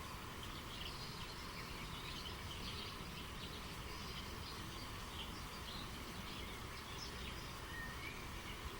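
Many small birds chirping and calling in quick short notes over a steady background rush of flowing stream water.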